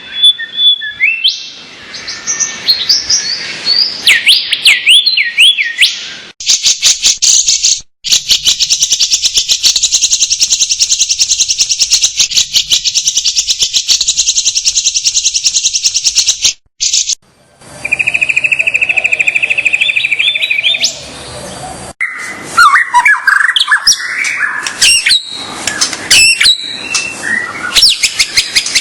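Songbird song in a masteran bird-tutoring track: a string of clips spliced together with abrupt cuts. Whistled chirping phrases open it, then a very fast high trill runs for about ten seconds, a lower, steady trill follows, and varied chirps and calls close it.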